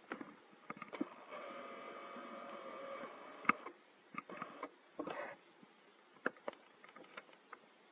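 Camera lens zoom motor whining steadily for about two seconds as the shot zooms in, with scattered sharp clicks and a brief rustle.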